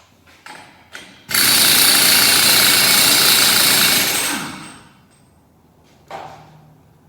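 Pneumatic impact wrench hammering on a 36 mm socket for about three seconds, starting just over a second in, to loosen a nut. A few light clicks come before it and a single knock near the end.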